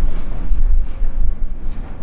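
A train passing close by: a loud, steady low rumble, with wind buffeting the microphone.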